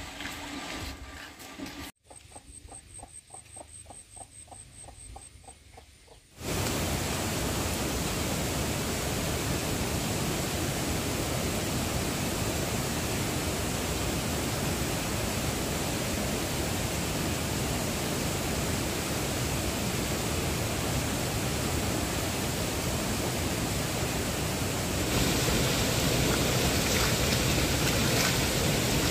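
Steady rush of flowing stream water, which cuts in suddenly a few seconds in and gets a little louder near the end, with splashing as water is scooped up.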